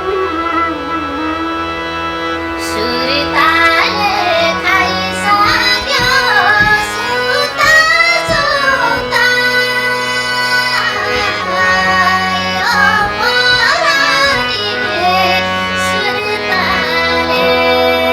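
A high, light female voice singing a Nepali song with many quick ornamental turns, over instrumental accompaniment. The voice comes in about three seconds in, after a short instrumental passage.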